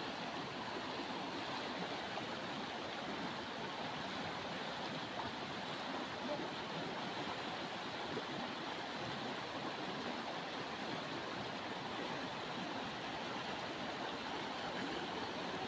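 River water running over rocks in shallow rapids, making a steady, even rush.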